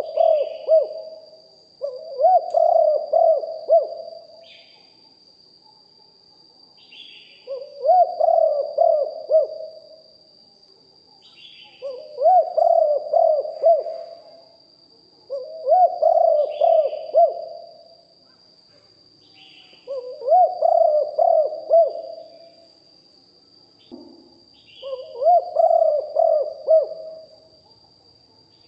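Spotted dove cooing: a phrase of several low, rolling coo notes about two seconds long, repeated every four to five seconds, about seven times. A steady thin high-pitched whine runs underneath, and short faint chirps fall between the phrases.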